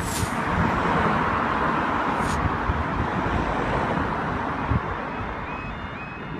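Cars and a van passing close over a level crossing, with steady tyre and engine noise that eases off toward the end. About five seconds in, the crossing's electronic warning alarm starts: a short rising tone repeating about twice a second, which signals that the barriers are about to come down for a train.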